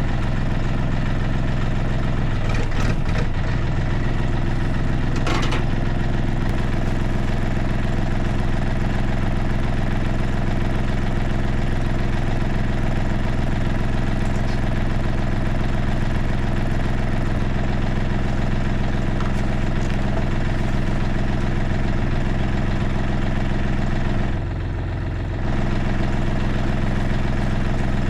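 The engine of a UHI 254 25 hp compact tractor running steadily at a constant speed. It dips briefly about 24 seconds in, then comes back to the same steady note.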